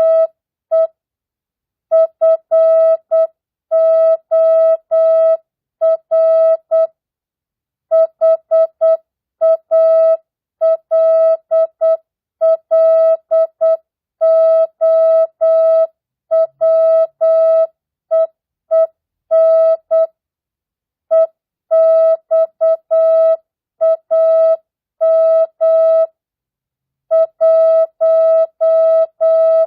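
Morse code (CW) practice tone: a single steady mid-pitched beep keyed on and off in short dits and longer dahs at 8 words per minute, with standard non-Farnsworth spacing. It sends mixed words, numbers and punctuation, with longer pauses between words.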